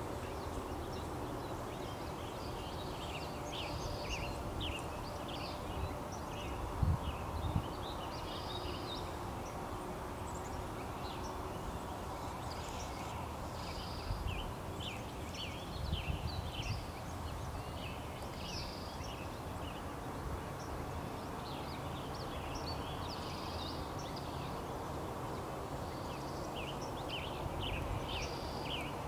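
Small birds chirping and twittering throughout, with a higher note repeating every few seconds, over a steady low background hum. A few low thumps near a quarter of the way in and again around halfway.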